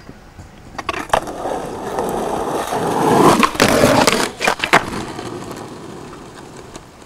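Skateboard wheels rolling, the rumble building and then fading away, with a few sharp board clacks along the way and a quick cluster of them about halfway through.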